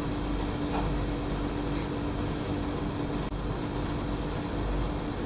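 Steady mechanical drone: an even rumble with one constant humming tone, unchanging in level.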